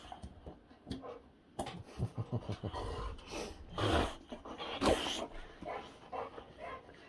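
Boxer dogs panting and snuffling as they sniff each other nose to nose, with a quick run of breaths about two seconds in and two louder short noises about four and five seconds in.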